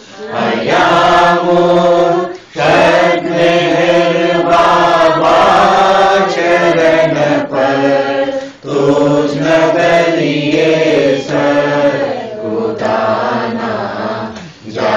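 Voices singing a Gujarati devotional arati to Meher Baba in a slow, chant-like melody, with held notes and short breath breaks between lines about every six seconds.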